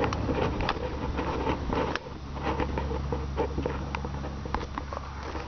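Small irregular clicks and scrapes of a Phillips screwdriver working a screw out of a plastic turn-signal light housing, over a steady low hum.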